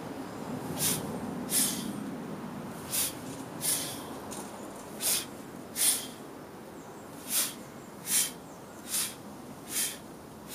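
Sharp, forceful breaths in pairs, a pair about every two seconds, in time with repeated high swings of a heavy clubbell.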